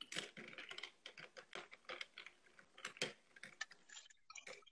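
Bar spoon stirring ice cubes in a tall glass of a gin Collins topped with sparkling water. It makes faint, rapid, irregular clinks of ice against glass.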